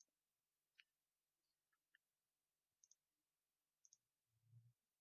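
Near silence with a few faint, short clicks scattered through it, some in quick pairs, and a brief faint low hum near the end.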